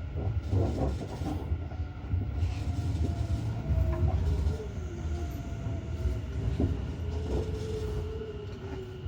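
Tobu Tojo Line commuter train running on the rails: a steady low rumble with scattered wheel clicks, and a faint whine that wavers and slowly falls in pitch.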